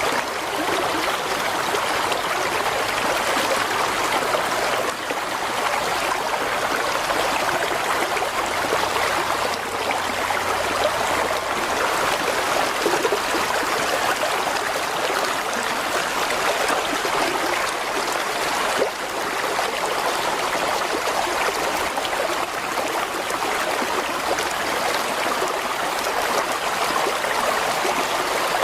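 Mountain stream flowing over rocks, a steady rushing and gurgling of water.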